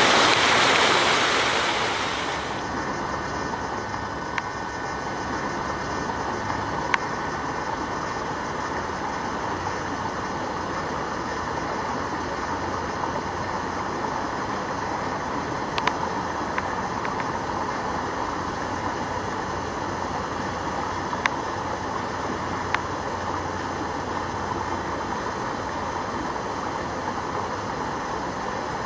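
Water rushing loudly, then about two seconds in it drops to a steadier, quieter flow of water pouring from an overflow channel into the canal, with a few faint clicks.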